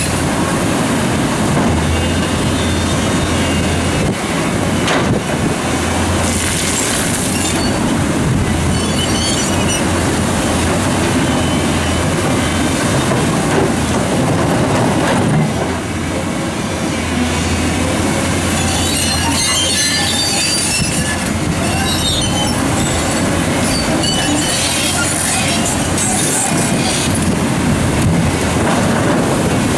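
New Holland E385 crawler excavator working under load, its diesel engine running steadily while the steel bucket scrapes and grinds against large boulders, with high metallic squeals now and then. River water rushes over a weir underneath.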